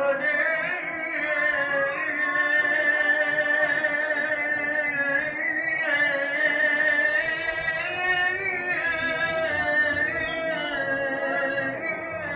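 Background music: a slow melody of long, wavering held notes that sounds sung.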